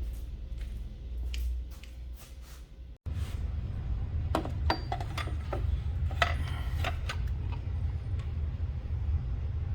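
Scattered light clicks and clinks of small hard parts being handled, over a steady low rumble, starting after a brief cut-out about three seconds in.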